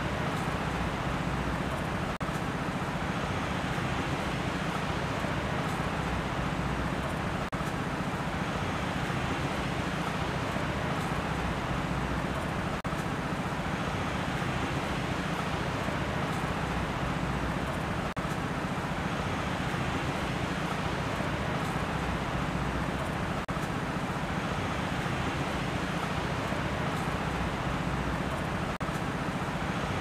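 Steady rushing noise with a deep rumble underneath, dipping briefly about every five seconds.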